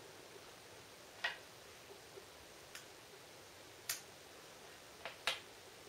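About five sharp plastic clicks, spread out, with two close together near the end, from handling the IKEA Jansjo LED clamp spotlight and its cord.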